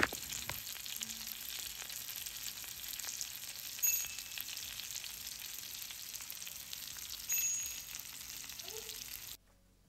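Marinated sankara (red snapper) fish frying in hot oil: a steady sizzle full of fine crackles, with a light clink twice. It cuts off suddenly near the end.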